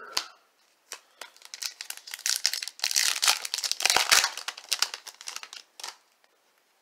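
Foil wrapper of a Topps Chrome trading-card pack crinkling and being torn open, a dense crackle that starts about a second in and stops near the end.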